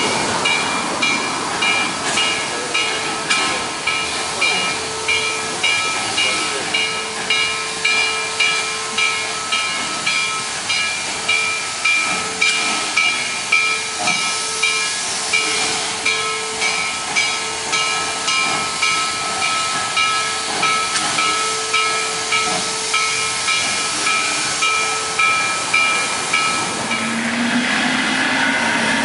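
1916 Baldwin 2-8-0 steam locomotive moving slowly, hissing steam with a steady rhythmic pulse about one and a half times a second and a ringing metallic overtone. Near the end the pulsing stops and a steady, fuller hiss with a low hum takes over.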